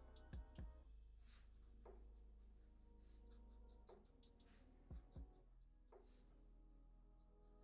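Black felt-tip marker making short, quick scratchy strokes on paper, faint, with a few soft knocks of the hand against the paper.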